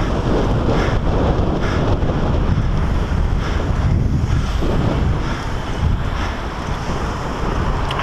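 Wind buffeting the microphone of a bicycle-mounted camera while riding, a steady low rush mixed with road noise.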